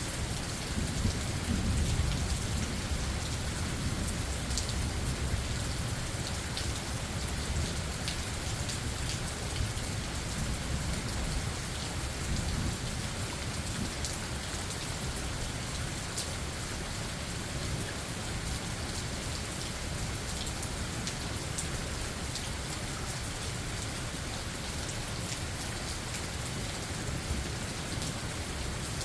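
Steady rain falling, with scattered individual drops ticking. A low rumble of thunder in the first few seconds, fading into the rain.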